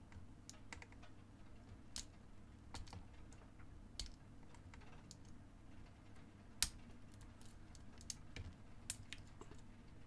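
Faint, irregular small metallic clicks of a lock pick and tension wrench working inside a small brass Ace padlock, with one sharper click about six and a half seconds in: single-pin picking, the pins being set one by one.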